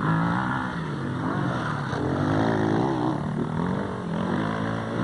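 Enduro motorcycle engines revving as riders pass close by, the pitch rising and falling several times.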